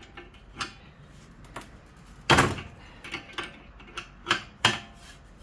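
Metal clanks and knocks from handling a scrap electric fan motor and tools while getting ready to remove its bolt: about eight separate hits, the loudest a ringing clank a little over two seconds in, with a quick cluster of knocks near the end.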